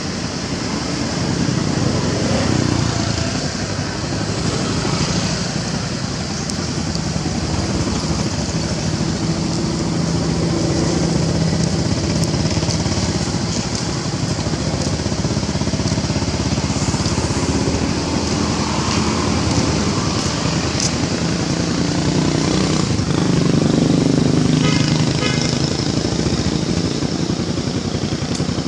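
An engine running steadily, its pitch drifting a little up and down, under a constant high hiss.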